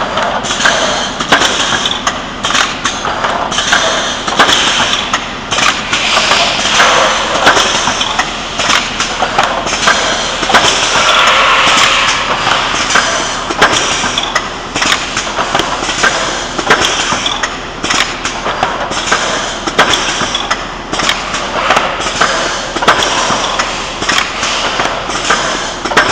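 Spine pocket welding machine for lever arch file covers running, with a steady mechanical noise and frequent clatters and knocks throughout.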